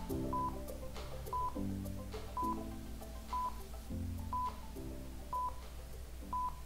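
Twitch premiere countdown: a short high beep once a second, seven in all, over low synth music chords that change with the counts.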